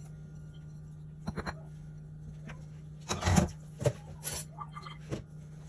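Light clicks and knocks of crockery being handled as crispy fried onions are tipped off a small ceramic plate onto a noodle bowl, with a louder knock about three seconds in, over a steady low hum.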